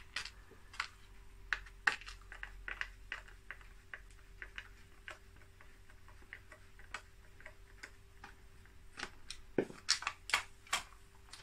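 Scattered light clicks and ticks of a screwdriver working screws out of the plastic cyclone handle of a Dyson DC24 upright vacuum, with plastic parts being handled. The clicks come more often near the end.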